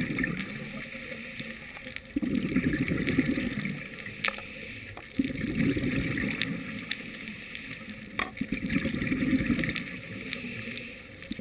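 Scuba diver breathing through a regulator underwater: exhaled bubbles gurgle in bursts about every three seconds, muffled through the camera's waterproof housing, with a few sharp clicks.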